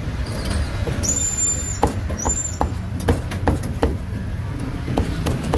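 A cleaver chopping roast duck on a wooden chopping block: a series of sharp, irregular chops from about two seconds in, over a steady traffic rumble. A brief high-pitched squeal sounds about a second in and again about two seconds in.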